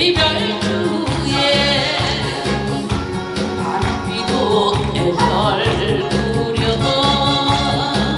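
A woman singing a Korean trot song into a microphone over backing music with a steady beat, her held notes wavering with vibrato.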